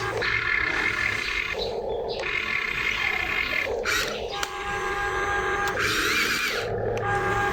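Small electric gear motors of RC construction toys whirring in short stop-start spells, the whine switching on and off every second or so.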